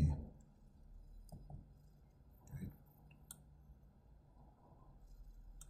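A few faint, scattered computer mouse clicks as a line is drawn on a chart, with a short soft vocal sound from the man about two and a half seconds in.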